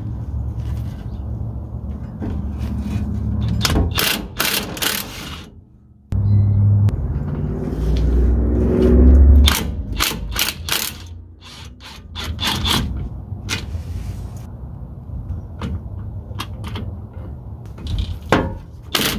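A socket ratchet on a long extension clicks in short runs as it loosens the driveshaft bolts at the rear-axle pinion flange, with a low rumble of handling noise between the runs.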